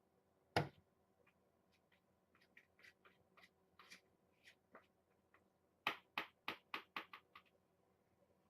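Faint handling clicks and taps: one sharp click about half a second in, scattered light ticks, then a quick run of about seven sharp clicks near the end.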